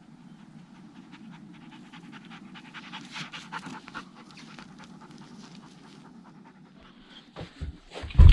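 A dog panting and sniffing close by, in quick, irregular breaths. A few loud, dull knocks come near the end.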